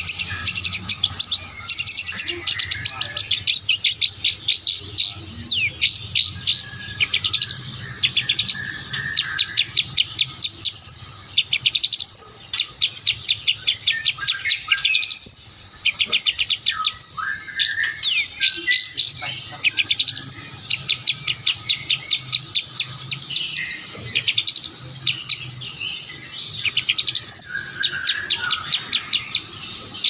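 Long-tailed shrike (cendet) singing loudly in fast trains of sharp chattering notes, about ten a second, in bursts of one to two seconds with short pauses and a few lower warbled notes between. This is its mimicked 'isian' of the rapid chatter ('kecekan') of the kapas tembak.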